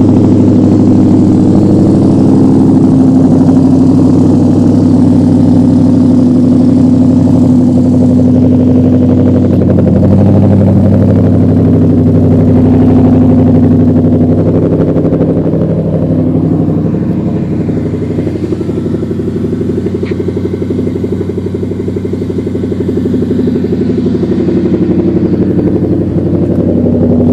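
2012 Ford Mustang GT's 5.0-litre V8 idling steadily through a Magnaflow axle-back exhaust, loud and even with no revving. It fades somewhat past the middle and comes back up near the end.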